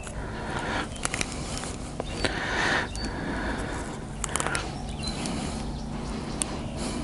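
A tangled gill net and fish being handled by hand: scattered small clicks and crackles, with a short rushing swell of noise about two and a half seconds in.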